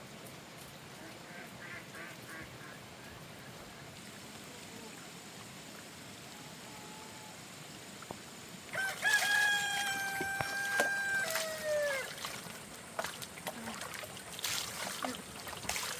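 A rooster crowing once, about nine seconds in: a long call held on one pitch for about three seconds that drops away at the end. A few short knocks and clicks follow near the end.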